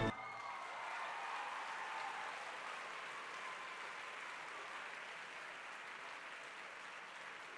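Audience applauding steadily and slowly dying down, just after orchestral music ends on a final chord whose ring fades in the first moment.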